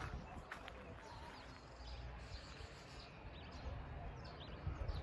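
Outdoor ambience: a few short bird chirps about three to four seconds in, over a low, uneven rumble.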